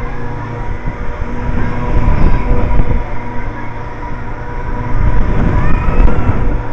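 HUSS Troika spinning amusement ride in motion, heard from a rider's seat: a loud, steady mechanical hum over a low rumble, swelling and fading as the arms swing round.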